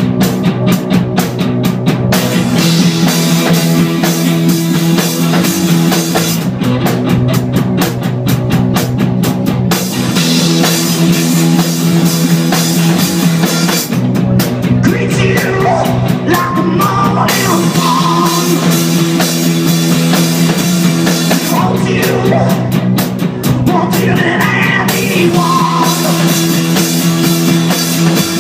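Live rock band playing a song: amplified electric guitars over a driving drum kit. Lead vocals come in about halfway through.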